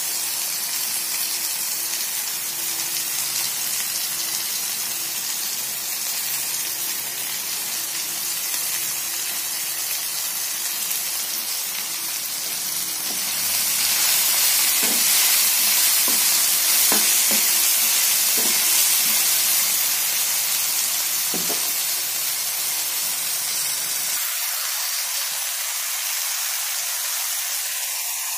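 Tomatoes, chillies and curry leaves frying in oil in a pan with a steady sizzle. About halfway through, a spatula stirs them: the sizzle grows louder for several seconds and the spatula knocks against the pan a few times.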